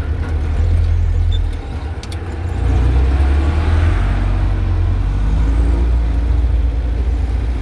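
Diesel engine of heavy road-building machinery running with a deep, steady rumble; it drops off briefly about two seconds in, then comes back up to full level.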